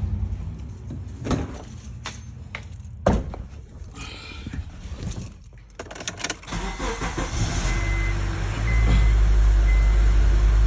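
A few clicks and knocks, then the Honda Accord's 2.4-liter four-cylinder engine is started after a fresh oil change and settles into a steady idle. A short chime beeps about once a second.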